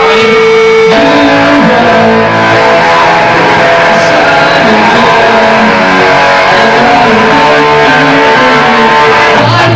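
Live rock band playing loud: electric guitar, bass guitar and drums. A single held tone stops about a second in as the full band comes in.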